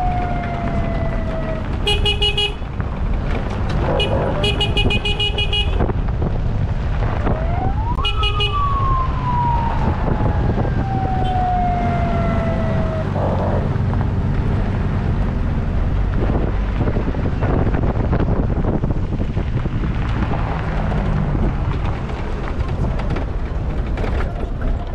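Vehicle horns honking: a short toot about two seconds in, a longer one from about four to six seconds, and another near eight seconds, over a steady low rumble. In between, siren-like tones slide down in pitch.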